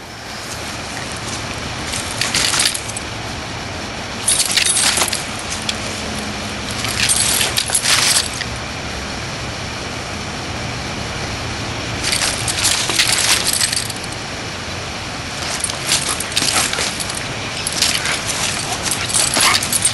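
A dog playing with a cat on gravel, heard as about six short bursts of rattling and scuffing a few seconds apart over a steady background noise.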